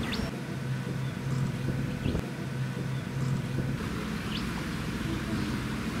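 Tour boat's engine running steadily with a low hum, and a few short, high chirps over it.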